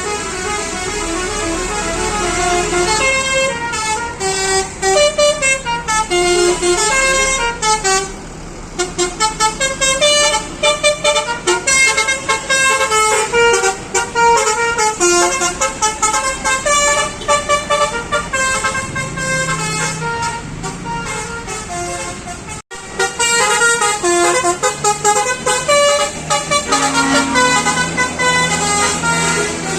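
Bus telolet horns (Basuri multi-tone horns) playing quick melodic runs of short notes, several buses overlapping, over a low engine rumble.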